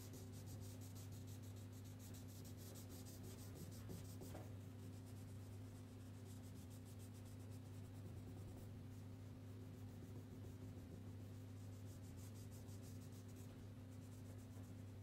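Faint scratching of a wax crayon rubbed on paper in quick back-and-forth strokes as a picture is coloured in, over a steady low hum.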